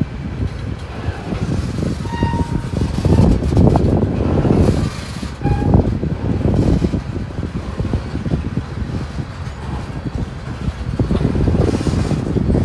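Freight train of loaded tank cars rolling past close by: a steady, loud rumble and clatter of steel wheels on the rails that rises and falls as the cars go by.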